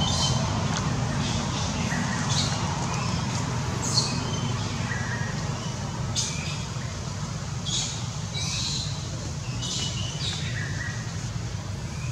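Birds chirping in short high calls every second or two over a steady low rumble.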